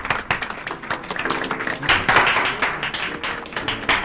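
Audience applauding: many hands clapping at once, loudest about two seconds in.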